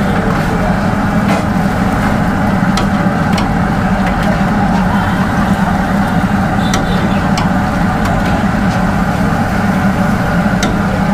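Chicken kababs deep-frying in a large pan of oil, a steady loud sizzle under a low roar, with scattered sharp crackles of popping oil.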